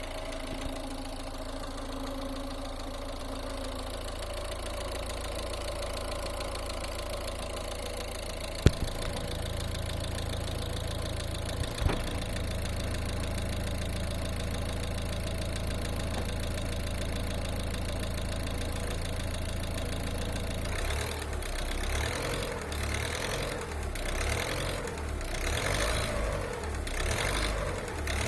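A hot 1.6-litre DV6C four-cylinder diesel running with a knocking or rattling sound. The owner reports that the knock appears only when the engine is warm and does not change when the clutch is pressed. Two sharp clicks come about a third of the way in, and in the last several seconds the engine note rises and falls repeatedly.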